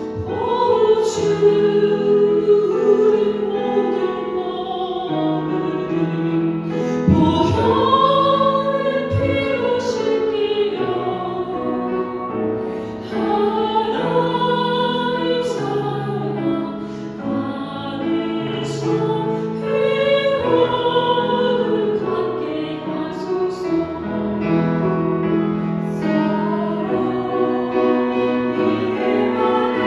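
A choir singing a slow hymn with words, in long held notes with vibrato.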